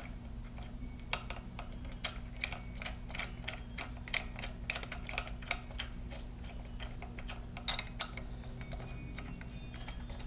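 Light metallic clicks and taps, irregular and a few a second, as bolts are started by hand into the tensioner pulley bracket on the front of an LS engine. A steady low hum runs underneath.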